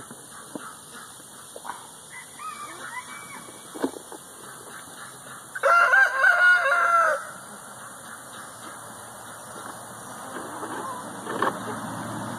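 Chickens in their pen: a rooster crows once, loud, for about a second and a half about six seconds in, with softer hen calls and clucks around it.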